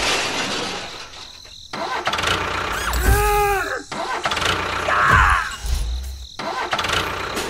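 Tractor engine sound in short edited pieces with abrupt cuts between them, joined about three seconds in by a pitched sound that arcs up and back down and about five seconds in by a short noisy burst.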